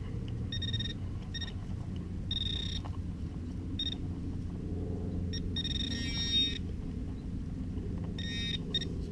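Handheld metal-detecting pinpointer probing a dug hole, giving several short bursts of high electronic beeping as it picks up a buried metal target, two of the bursts a fast pulsing run of beeps. A steady low rumble runs underneath.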